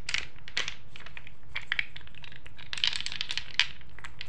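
Small square paint jars clicking and knocking against one another and sliding on paper as hands gather them up, a loose string of light clicks and rustles that is busiest about three seconds in.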